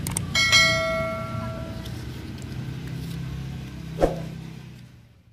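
Subscribe-button sound effect: a few quick clicks, then a bell ding about half a second in that rings out for over a second, over a low steady hum. A single short knock about four seconds in, then the sound fades away near the end.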